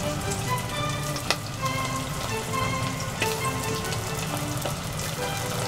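Chicken karaage pieces deep-frying in a pot of hot oil: a steady sizzle full of crackles, with a few sharper pops.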